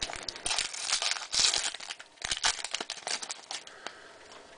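Foil wrapper of a trading-card pack crinkling and tearing as it is pulled open by hand, a quick run of crackles that dies away about three and a half seconds in.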